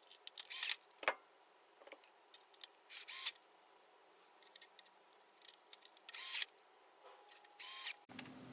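Power screwdriver driving the four mounting screws of a replacement display power supply: four short bursts, with a few light clicks of hardware being handled between them.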